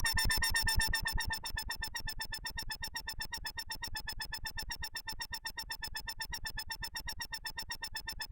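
Behringer Neutron analog synthesizer sounding a single held tone chopped into fast, even pulses, about ten a second. It grows quieter over the first second or so, then holds steady.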